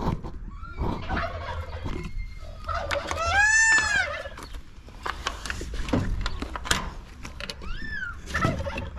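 Turkey gobbling, with a loud call about three seconds in and a shorter one near the end, among other farmyard fowl calls.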